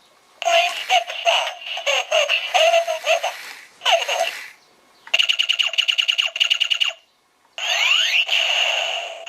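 Thinkway remote-control XR robot toy playing electronic sounds through its small speaker: about three seconds of warbling, voice-like electronic sound, then a rapid beeping lasting about two seconds. Near the end come swooping sound effects that rise and then fall.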